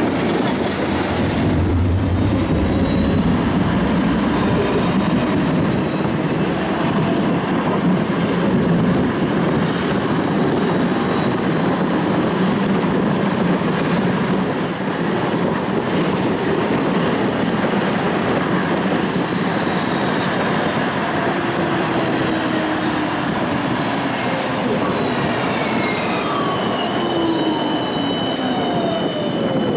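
Siemens Combino tram running on its rails, heard from inside the car: a steady rumble with a thin, high wheel squeal at times. Over the last few seconds a whine falls in pitch as the tram slows.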